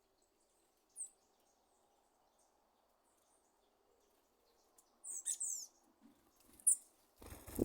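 A sabiá thrush giving short, sharp, high calls that sound like popcorn popping, with a quick cluster of falling notes about five seconds in. Near the end comes a brief burst of noise.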